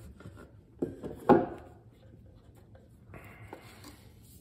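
Cardboard game boxes and paper being handled: two sharp knocks about a second in, the second louder, as a small cardboard box is moved. Then a short paper-on-paper slide as a rule booklet is drawn out of the box.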